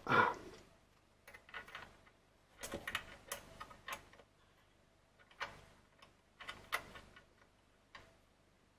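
Small metal spanner clicking and scraping against the bolts on a metal model locomotive's underside as they are loosened: short clusters of light metallic ticks with gaps between.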